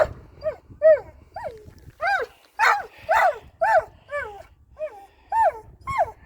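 A dog giving a rapid string of high, whining yelps, about two a second, each call rising and then falling in pitch.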